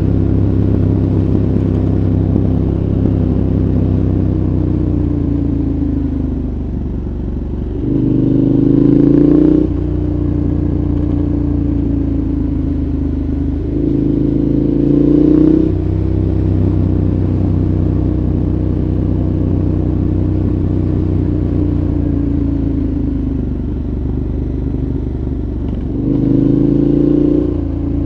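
KTM 1190 Adventure's 1195 cc V-twin through a Giannelli exhaust with dB killer, running with the pitch slowly falling. It is opened up in three short bursts of acceleration, about a third of the way in, halfway and near the end, each rising in pitch and louder before dropping off.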